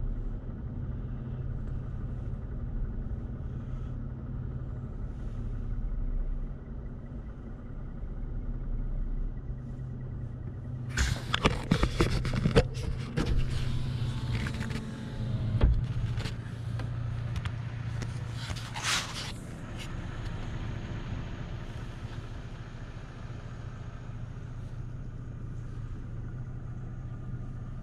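Car running at low speed, heard from inside the cabin as a steady low engine and road hum. Partway through comes a few seconds of knocks and rustling, then a short hiss a little later.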